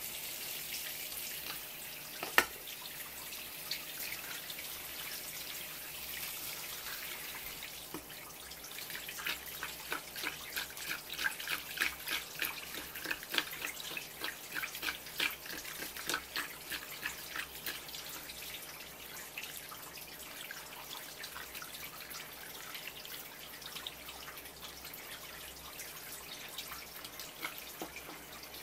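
Tap water running from a flexible hose into the opened belly of a striped jack, splashing as fingers wash out the blood and guts. For about ten seconds in the middle the splashing turns into a quick, uneven patter. One sharp click about two seconds in.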